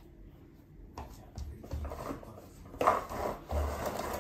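Soft knocks and rustles from dried sunflower heads being handled in a plastic toy wagon, with a sharper knock near three seconds, then a short low rumble as the wagon's plastic wheels start rolling on a wooden floor.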